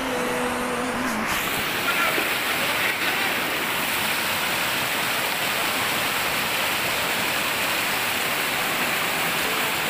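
Fast river water rushing steadily over rocks in a whitewater rapid. A held musical tone cuts off about a second in.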